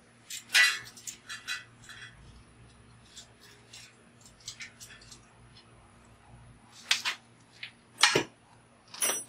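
Small ratchet wrench clicking and clinking as it loosens the steel bolt holding a bicycle fender to the frame, in short irregular runs of ticks. A few louder metallic knocks come near the end.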